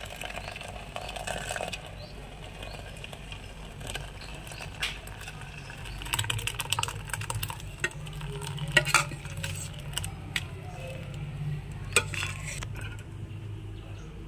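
Steel kitchen vessels and a spoon scraping and clinking as freshly curdled chhena is tipped out and strained through a cloth, with a run of sharp clinks in the second half, the loudest about 9 and 12 seconds in. A steady low hum runs underneath.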